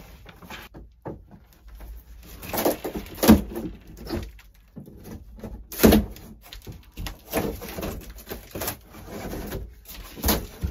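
Wooden ceiling trim and panelling being pried and pulled off a camper's roof framing: irregular knocks and scraping, the loudest knocks about three and six seconds in.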